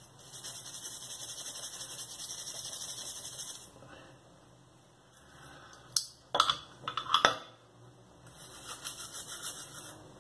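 Nylon cleaning brush scrubbing a pistol's metal slide with quick back-and-forth strokes, in two spells. A few sharp knocks of the metal parts being handled come about six to seven seconds in.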